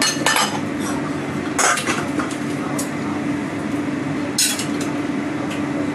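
Metal kitchenware clattering and clinking as a three-pronged steaming-plate lifter is handled at a wok: a few sharp clinks, the loudest about a second and a half in and again past four seconds. A steady low hum runs underneath.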